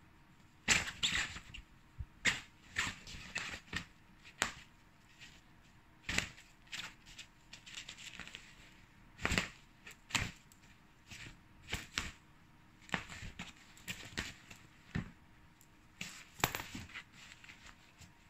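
Nylon cat play tunnel rustling in short, irregular bursts as a cat moves and paws at a feather wand toy inside it.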